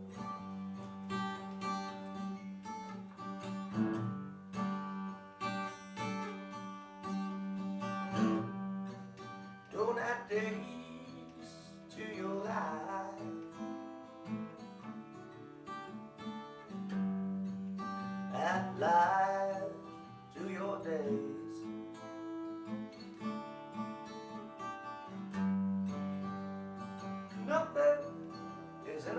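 Instrumental music: an acoustic guitar plays steady chords, and a gliding lead melody line comes in over it in several short phrases.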